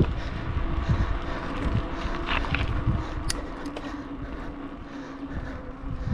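Bicycle rolling on a concrete path: tyre rumble and wind buffeting the handlebar-mounted microphone, heaviest at the start and easing off, with a few faint chirps and ticks over it.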